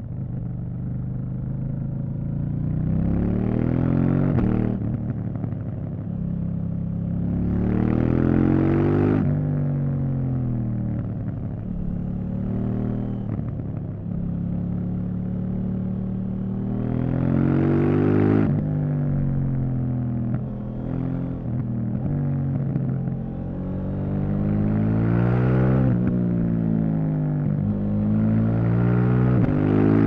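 KTM 790 Duke's 799 cc parallel-twin engine revving hard and easing off through a run of bends: five rising pulls, each dropping away in pitch as the throttle closes, with steadier running between.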